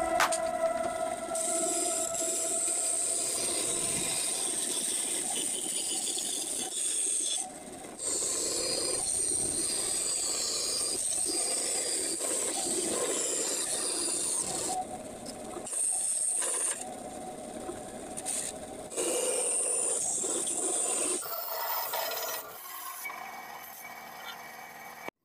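Band saw running and cutting a curve through a wooden board, the blade rasping steadily through the wood. The sound drops away and comes back abruptly several times.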